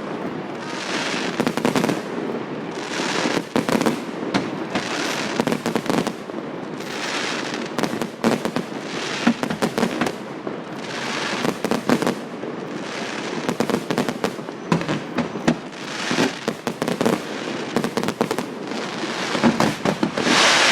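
Fireworks display: a rapid run of shell bursts going off one after another, many followed by about a second of crackling, with the loudest crackle near the end.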